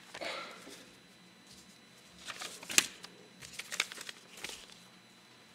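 Pages of prayer books and papers being turned and handled: several short paper rustles and sharp clicks, the sharpest near the middle, over a quiet room.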